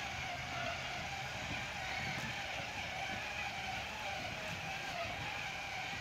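A motor running with a steady whine that wavers slightly in pitch, over a low rumble.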